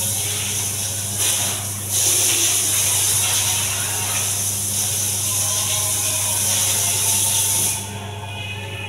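Handheld bidet sprayer (shattaf) spraying water onto a ceramic tile floor, a steady hiss of water that breaks off briefly just under two seconds in and stops near the end.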